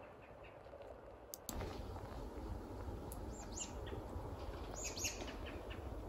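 Steady low outdoor background noise with a few short, high-pitched chirps from small animals in two little clusters, about halfway through and again near the end. The background noise steps up about a second and a half in.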